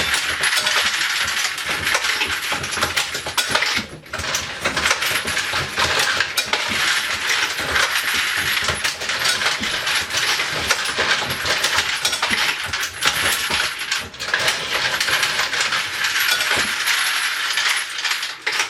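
Continuous metallic clatter of bullets and brass cases jostling in the feeders of a Dillon XL650 progressive reloading press while it runs, cutting off suddenly at the end.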